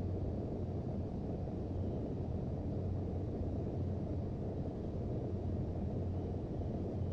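Steady cabin drone of a Boeing 737-800 in flight on its landing approach: the low, even rumble of its CFM56 engines and airflow heard from inside the passenger cabin, with a constant deep hum underneath.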